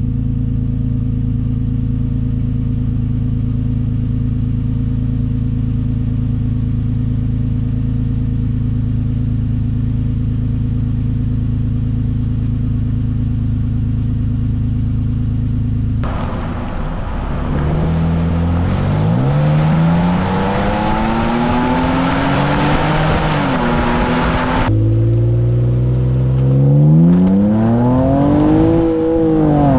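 2024 Nissan Frontier Pro-4X 3.8 L V6 idling steadily just after a cold start through an MBRP Armor Pro stainless-steel exhaust. About halfway through, the same truck on its stock exhaust accelerates hard: engine pitch climbs, drops at gear changes and climbs again.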